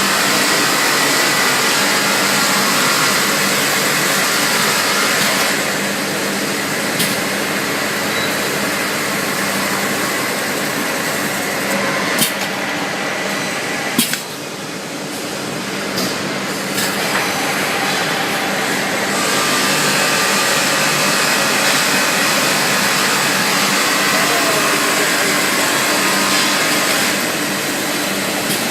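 Automatic rotary six-station inside sanding machine running, sanding the insides of cookware: a loud, steady grinding noise. A few sharp clicks come near the middle, where the noise briefly drops and then builds back up.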